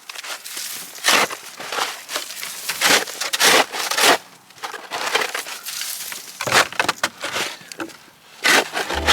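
Crunching steps in deep snow, irregular and uneven, with no motor running.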